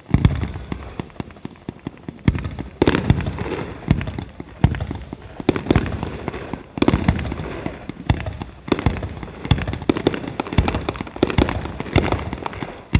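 Aerial fireworks shells bursting in rapid succession: heavy booms every second or two, with dense crackling between them.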